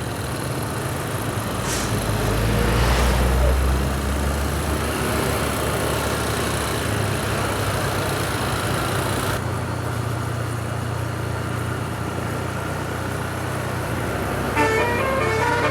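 Steady engine and traffic noise of road vehicles, swelling with a heavier low rumble about two to four seconds in as a large vehicle passes. Near the end a telolet basuri musical horn starts up, playing a quick tune in stepped notes.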